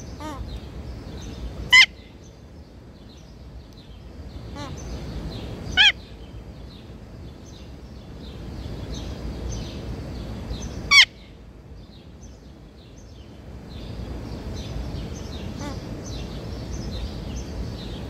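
Eclectus parrot giving three short, loud, harsh squawks a few seconds apart. Small birds chirp faintly in the background over a low steady rumble.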